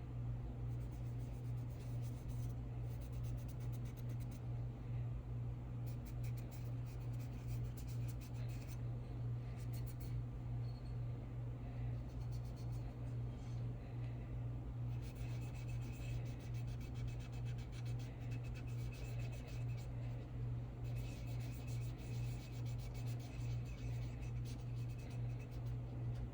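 Quick, light rubbing strokes as solvent is worked over the top of a pistol slide to lift excess color-fill paint, coming in spells with short pauses. A steady low hum runs underneath and is the loudest sound.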